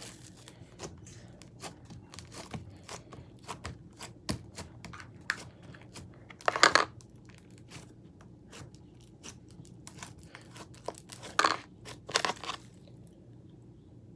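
Hands kneading and pulling apart a large mass of slime, giving a steady run of small sticky clicks and crackles, with louder squelches near the middle and twice near the end, as the slime is searched for pearls mixed into it.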